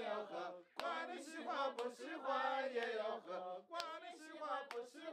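Several voices singing together in a chant-like traditional Nu folk song. Some notes are held for a second or more.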